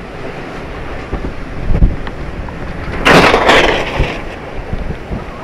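Hurricane-force wind buffeting the car and microphone with a low rumble, a heavy thump a little under two seconds in, then a loud crash about three seconds in, lasting about a second, as wind-blown debris comes down onto the road.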